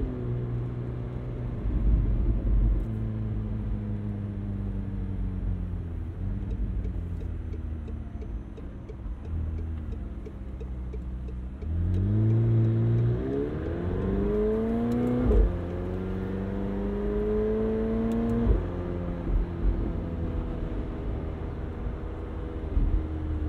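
2020 McLaren 720S Spider's twin-turbo 4.0-litre V8 cruising with the engine note easing down. About halfway through it pulls hard with the note climbing, drops sharply on a quick dual-clutch upshift, and climbs again. It then lifts off, with the pitch falling away.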